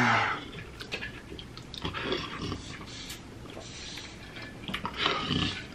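A man breathing hard and blowing out through his mouth, a few heavy breaths with pauses between them, his mouth burning from 2x spicy chicken wings. At the start a groan trails off.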